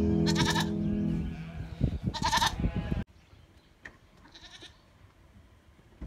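Goats bleating: two loud, wavering bleats about a second and a half apart over background music that fades out, then the sound drops away abruptly and one fainter bleat follows.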